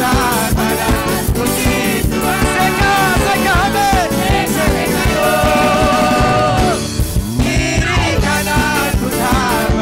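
Live gospel praise band, with electric keyboard, bass guitar and drums, playing an upbeat song with a steady beat while women sing into microphones, holding one long note about five seconds in.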